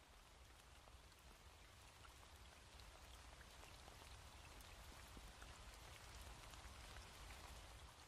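Faint steady rain falling, with many small drop ticks, growing a little louder and then fading out at the end.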